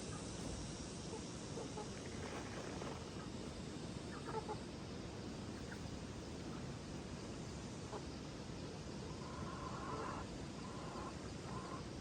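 Chickens clucking now and then over a steady background hiss: a few short, faint clucks, then a longer call near the end.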